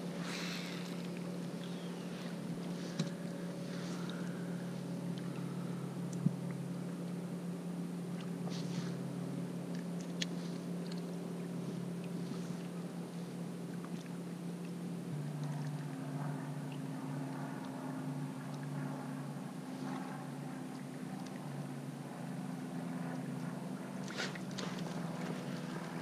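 A motorboat engine droning steadily, shifting in pitch about halfway through, with a few light clicks over it.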